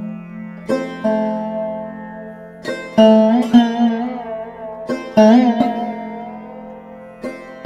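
Background music: plucked string notes, some bending in pitch, over a steady low drone.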